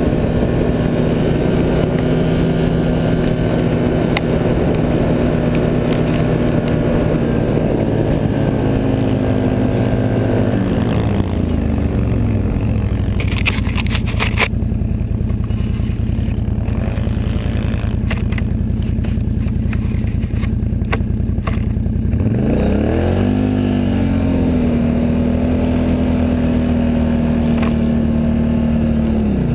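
Can-Am 1000 XT ATV on snow tracks, its V-twin engine running at steady throttle. About ten seconds in it eases off to a lower pitch, with scattered sharp clicks and scrapes. About twelve seconds later it revs back up and runs steady again, dipping once more near the end.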